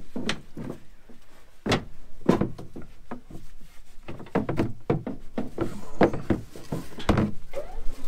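Irregular hollow knocks and clunks of a large plastic shield panel on a John Deere combine being pushed, shifted and lifted off.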